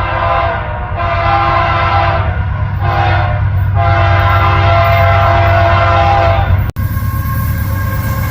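Nathan K3LA air horn on a CP AC44CWM locomotive sounding a crossing signal: the tail of one blast, then a long, a short and a long blast, over the rumble of the train. The horn cuts off abruptly near the end, leaving the rumble and hiss of the train rolling past.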